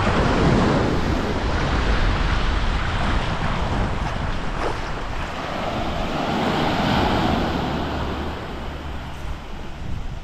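Surf breaking and washing on a beach, with wind buffeting the microphone. The wash swells about half a second in and again around six to seven seconds.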